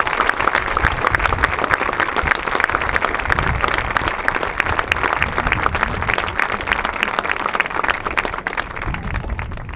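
Crowd applauding, many hands clapping at once, slowly dying down toward the end.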